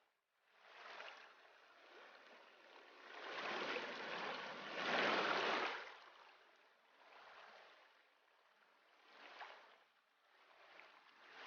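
Flowing creek water, a steady rushing that swells and fades and cuts out between several short stretches.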